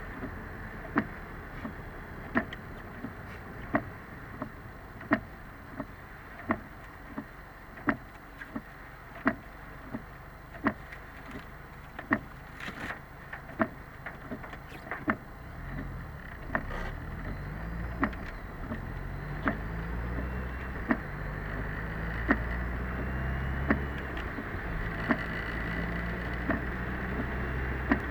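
Car interior through a dashcam in heavy rain: windscreen wipers knocking at the end of each sweep, about once every second and a half, over steady rain and road noise. From about halfway the engine note rises in steps as the car speeds up.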